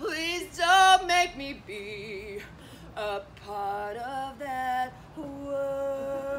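A woman singing solo: a wavering phrase near the start, shorter notes in the middle, then a long held note over the last second or so.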